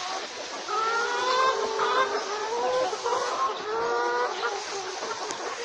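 A flock of chickens calling and clucking, with many calls overlapping at once.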